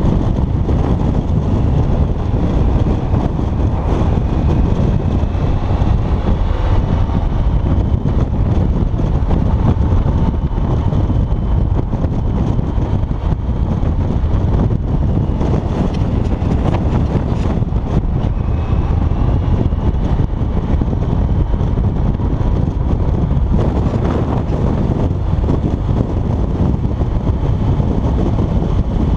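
Steady wind rush buffeting a helmet-mounted microphone on a motorcycle cruising at highway speed, with the motorcycle engine's drone faintly under it, its pitch drifting slightly.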